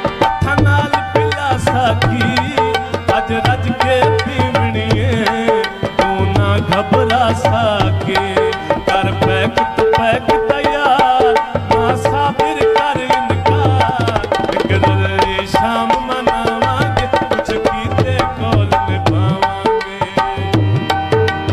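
Live Punjabi folk music: a hand-drum rhythm with harmonium and melody playing on without break.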